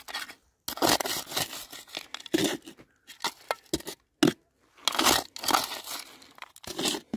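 Gravelly soil and small stones crunching and rattling as they are scraped and shaken in a prospector's scoop, in about half a dozen short bursts with pauses between, while trying to isolate a metal-detector target.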